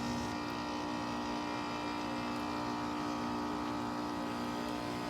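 2017 Bryant Legacy Line heat pump outdoor unit running with a steady hum made of several steady tones over a low rumble.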